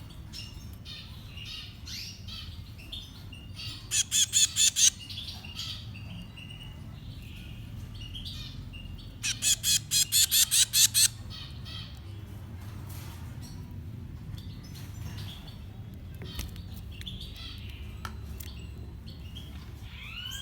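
Baby finches begging to be fed: two loud bouts of rapid, repeated harsh calls, the first about a second long and the second nearly two seconds, over soft chirping throughout.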